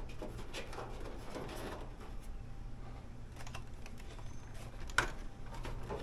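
Light plastic clicks and taps as an LG dryer's front control panel is wiggled down onto its tabs and groove, with one sharper click about five seconds in, over a low steady hum.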